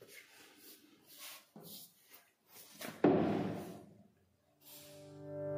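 Faint scattered rubbing and tapping of hands handling a leather-hard clay piece on the potter's wheel, then a single loud thump about three seconds in that fades over about a second. Guitar music fades in near the end.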